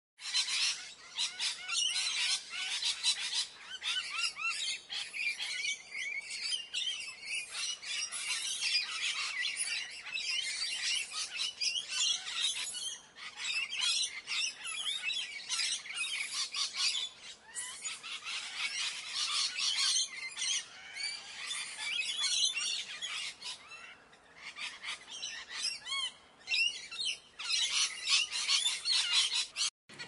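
A large flock of red-and-green macaws calling, many squawks overlapping into a continuous din; it cuts off suddenly near the end.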